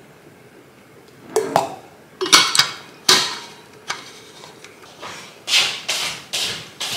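Several sharp knocks and clinks as a metal utensil and a ceramic mug are handled on a stone countertop, followed from about halfway by a steady run of footsteps on a hard floor, about two a second.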